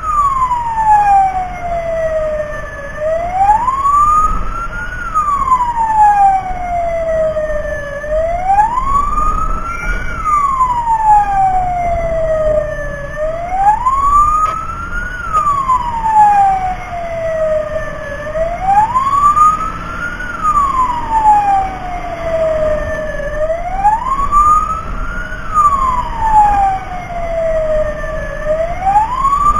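Fire-rescue truck siren in a slow wail, rising for about two seconds and falling for about three, over and over, with engine and road rumble underneath.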